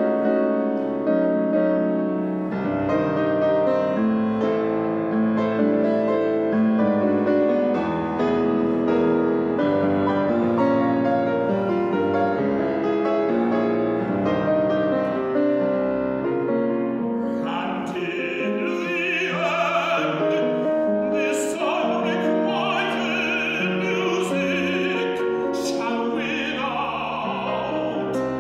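Piano accompaniment of a chamber opera, playing a steady sequence of chords. About two-thirds of the way in, a man's operatic voice enters, singing with vibrato over the piano.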